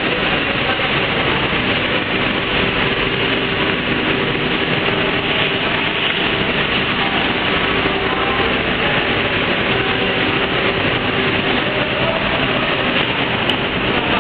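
Automatic roti-making production line running: conveyor ovens, motors and fans making a steady, even machine noise with a faint hum.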